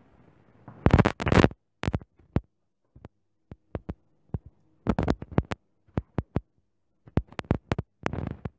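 Sharp clicks, taps and clatter of small repair tools and the phone being handled on a hard tabletop. A loud cluster comes about a second in, more around five seconds in, and another run near the end.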